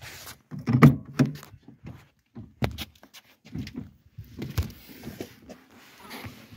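A Volkswagen Golf's car door being opened: handle and latch clicks and a thunk about a second in, followed by scattered knocks and handling noises at the door and cabin.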